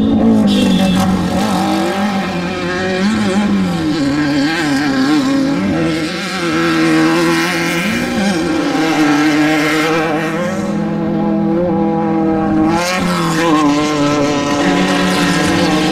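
Off-road desert race vehicle engines running hard, their pitch rising and falling over and over as the throttle comes on and off, with a sharp rise in revs about thirteen seconds in.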